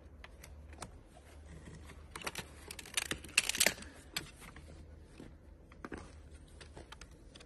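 Quiet handling noises: scattered small clicks and rustling, busiest about two to four seconds in, over a faint steady low hum.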